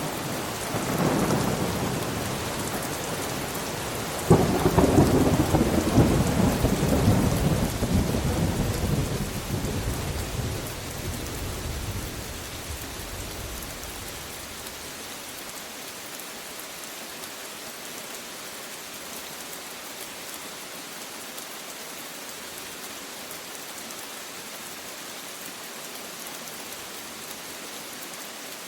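Thunderstorm: steady rain with a thunderclap. A rumble builds in the first seconds, a sudden loud crack about four seconds in rolls on and fades over the next eight seconds or so, then only the even hiss of rain is left.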